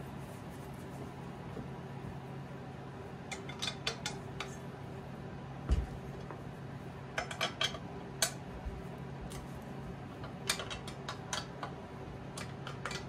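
Metal clinks and taps from hand tools working on an old drill-press electric motor being taken apart, coming in short clusters, with a dull thump about six seconds in. A steady low hum runs underneath.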